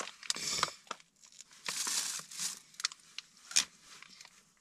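A plastic bag crinkling and rustling in bursts as a frozen piece of smoked cured pork is gnawed through it. There are scattered sharp clicks, with a loud one late on.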